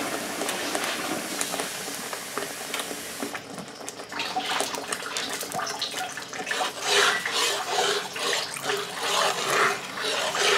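Water runs in a steady stream for about three seconds. Then it splashes into thick tomato sauce in a cast-iron skillet, and a metal spatula scrapes and knocks against the pan as the sauce is stirred, with irregular scrapes from about four seconds in.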